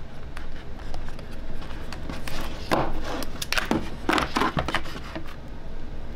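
Fingers prying a phone out of its tight-fitting cardboard box tray: a series of irregular short scrapes and rubs of skin on card and glass, over a low steady hum.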